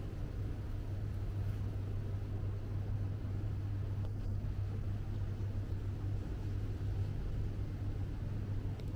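Steady low hum over a constant background rumble, unchanging throughout.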